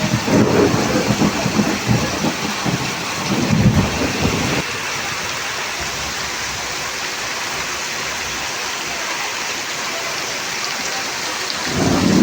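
Heavy rain pouring steadily, with low rumbles of thunder in the first four or so seconds that then die away, leaving an even hiss of rain.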